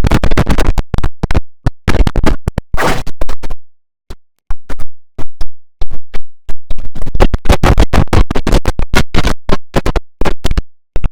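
Heavily edited audio chopped into rapid stuttering fragments, like record scratching, with brief cut-outs to silence about four seconds in and near the end.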